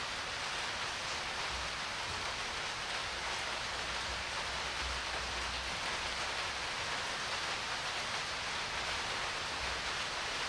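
Steady, even hiss of background noise with no distinct event in it; the soldering itself makes no sound that can be picked out.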